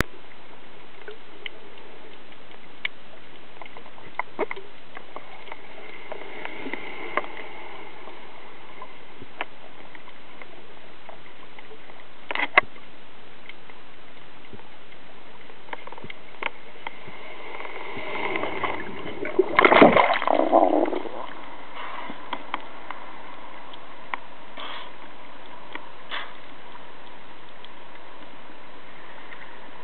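Water sounds picked up by a camera in and under the sea: a steady hiss with scattered faint clicks, then loud sloshing and splashing about two-thirds of the way through.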